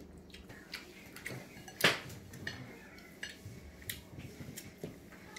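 Scattered clinks and taps of dishes and utensils, with one sharp, loud clink about two seconds in.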